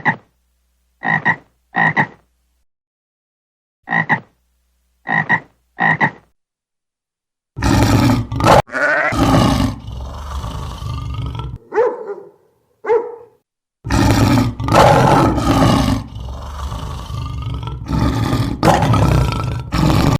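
A frog croaking: six short croaks in two sets of three. Then, from about seven and a half seconds in, a large animal roaring with loud, harsh calls that rise and fall in pitch, broken by two brief grunts.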